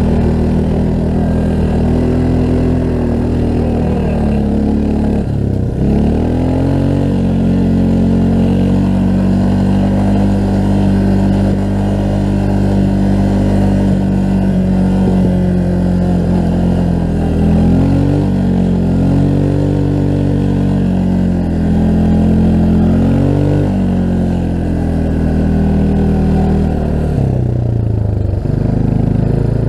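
Honda FourTrax ATV's single-cylinder four-stroke engine running under way, its pitch dipping sharply and climbing back about five seconds in, wavering a couple of times with throttle changes, and falling near the end.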